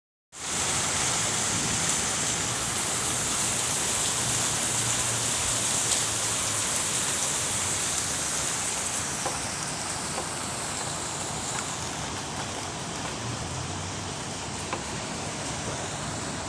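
Steady rain falling, an even hiss that eases slightly in the second half.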